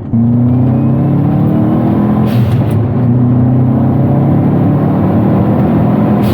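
Subaru Forester's flat-four engine accelerating hard, its pitch rising, dropping at a gear change about two and a half seconds in, then climbing again.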